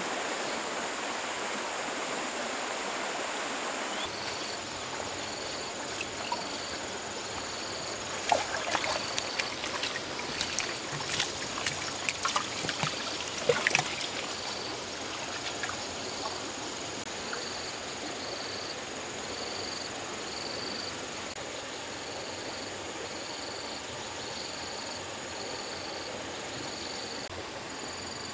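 Steady rush of flowing river water, with a high, steady insect drone over it. From about four seconds in, an insect chirps in a regular pulse a little more than once a second. Between about eight and fourteen seconds comes a run of sharp knocks and splashes.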